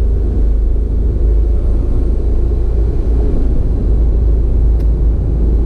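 Steady loud low rumble of a vehicle on the move, with no distinct events.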